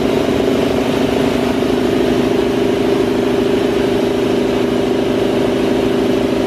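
Jenny electric air compressor running steadily on its first start, its motor and belt-driven piston pump making an even drone as it pumps the tank up toward operating pressure.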